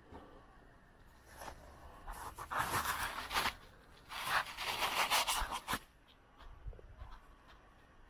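Footsteps crunching in fresh snow: two stretches of scratchy crunching, each a second or more long, the second stopping shortly before the end.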